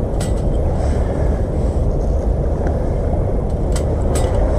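Sticks of firewood clicking against a small folding metal Bushbox wood stove as they are fed into it: one sharp click near the start and two near the end. Underneath is a loud, steady, low rushing noise.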